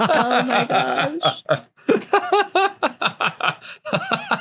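Several people laughing, with a few broken bits of talk and vocal noises mixed in.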